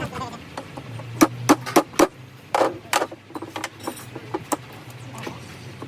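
Sharp metallic clicks and knocks of tools and steel parts being handled during a truck gearbox rebuild, several in quick succession, over a steady low hum.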